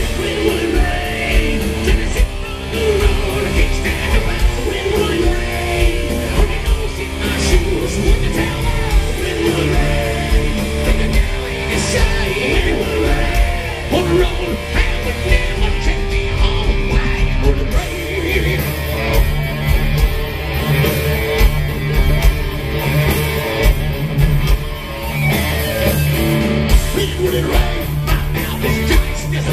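Hard rock band playing live: distorted electric guitars, bass and drums, with a lead vocal.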